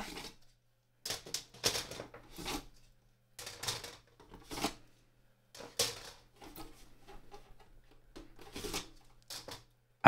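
Empty hard drive trays being pulled one by one out of the bays of a six-bay NAS and set down, giving a series of short clicks and clatters with pauses between.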